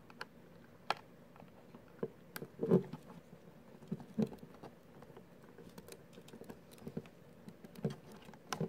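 Irregular small plastic clicks and taps as a Blink Outdoor camera is pressed and worked into the plastic floodlight mount housing, which it won't stay seated in. One louder knock comes about three seconds in.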